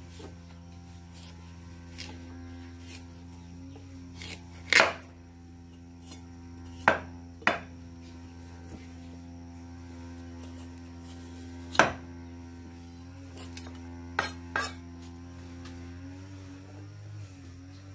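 A large knife shaving the skin off a green squash on a wooden chopping block: a series of sharp knocks and short scrapes, the loudest about five seconds in, over a steady low hum.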